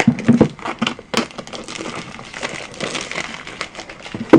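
Speed-cube packaging being handled and slid open: plastic and cardboard rustling with a string of small clicks, and a sharp knock near the end.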